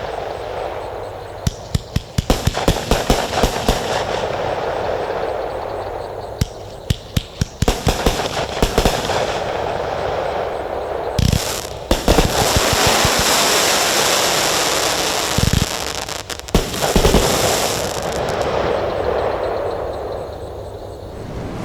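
Consumer firework cakes firing: quick strings of sharp shots and pops, then long stretches of dense, continuous crackle broken by a few louder bangs.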